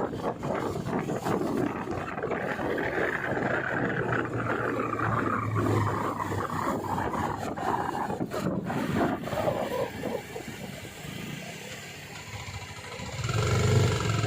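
Kawasaki Ninja 250 motorcycle with an Akrapovic exhaust running while being ridden. The engine sound drops back quieter for a couple of seconds, then swells up again near the end as the bike accelerates.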